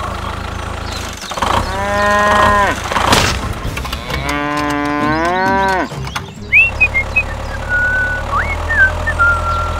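A cow mooing twice, two long calls about two and five seconds in. Short high whistled chirps follow near the end, over a steady low hum.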